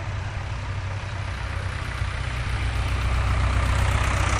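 Vintage tractor engine running steadily as the tractor drives past at low speed. It grows louder from about halfway through as the tractor comes close.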